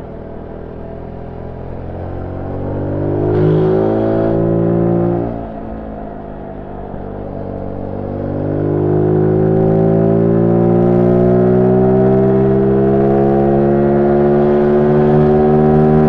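Zontes U1 125 single-cylinder engine through its stock exhaust, heard on board while riding. Its pitch rises under throttle, drops sharply about five seconds in, then climbs slowly and runs louder for the rest of the time.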